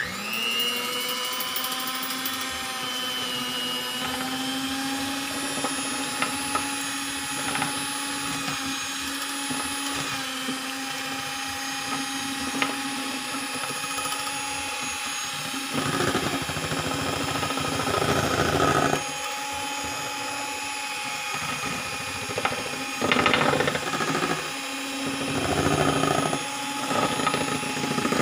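Electric hand mixer switching on and running steadily, its beaters whipping chilled cream in a stainless steel bowl. Its pitch rises briefly as it starts, then holds steady, with louder, rougher stretches in the second half.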